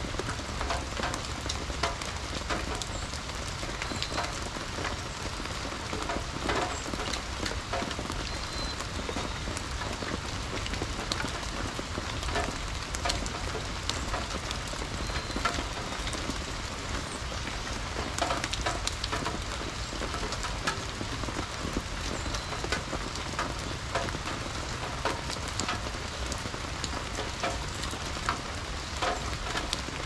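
Steady rain falling on a wet garden, with many individual drops landing as sharp ticks. A few brief high bird chirps come through the rain.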